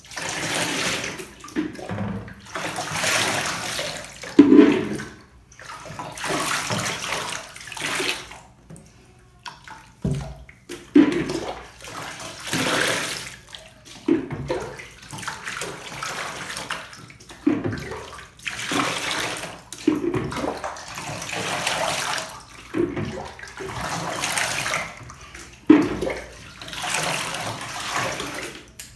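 Bathwater splashing and pouring in a shallow bathtub, in repeated bursts about every two seconds, as water is scooped up and poured over a small dog being washed.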